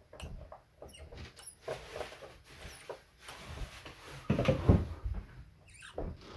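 Small screwdriver working a set screw in the side of a microphone body: scraping, small clicks and handling knocks, with a louder bump about four and a half seconds in.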